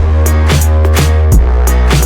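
Loud electronic background music with a heavy bass and a driving drum beat.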